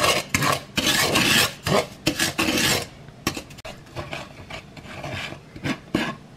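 Wooden spatula scraping and stirring sugar in oil across a frying pan, in repeated strokes that are loud for about three seconds and then softer and shorter. The sugar is being cooked slowly in the oil until it melts and turns golden brown.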